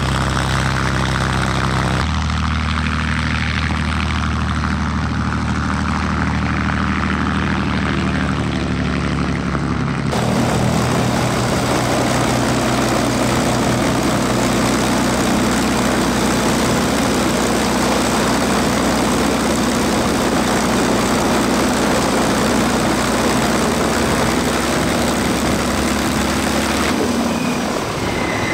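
P-51D Mustang's Packard Merlin V-12 engine running steadily at low power on the ground, propeller turning. The sound changes abruptly about two and ten seconds in, becoming fuller and rougher from there on.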